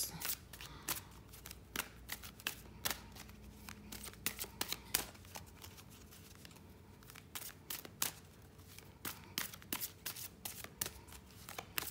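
A deck of Romance Angels oracle cards being shuffled by hand: a run of soft, irregular card snaps and rustles, thinning out for a moment in the middle.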